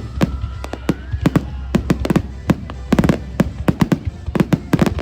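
Aerial fireworks going off in rapid succession, sharp bangs several a second with a dense cluster about three seconds in, over a steady low rumble.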